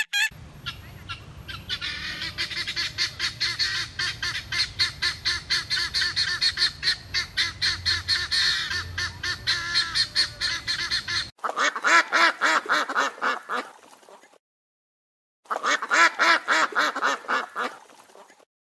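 Helmeted guinea fowl calling in a fast, high, rhythmic chatter that stops suddenly after about eleven seconds. It is followed by a duck quacking rapidly in two bouts with a short pause between them.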